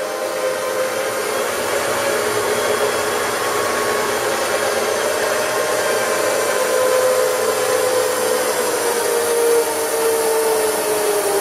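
Union BFT125/5 horizontal boring machine running, with its table traversing on power feed: a steady whirring hum with a whine that slowly falls in pitch near the end.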